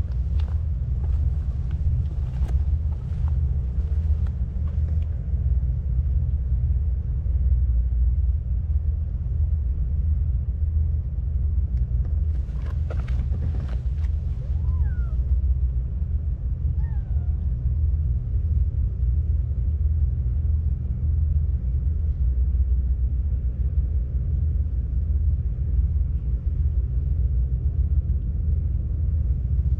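Steady low outdoor rumble with scattered soft clicks, and a cat meowing twice briefly about halfway through.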